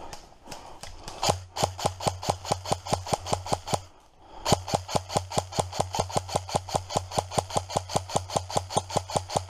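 Airsoft rifle firing two long strings of rapid shots, about eight a second, with a low hum running under them; the first string stops about four seconds in and the second starts half a second later.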